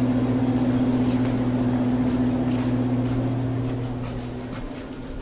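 Steady low electrical hum of refrigerated vending machines, fading away about four seconds in, with faint regular footsteps.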